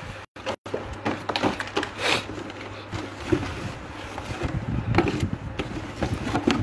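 Handling noise from a cardboard box with a polystyrene tray and loose plastic wrap: irregular rustling, crinkling and small knocks.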